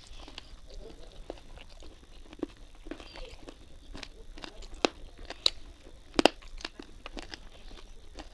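Close-up chewing and wet mouth smacks of a person eating rice and curry by hand, with sharp irregular clicks scattered through. The loudest click comes about six seconds in.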